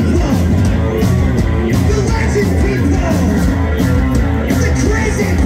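A rock band playing live: a male vocalist singing into a microphone over electric bass and a steady drumbeat.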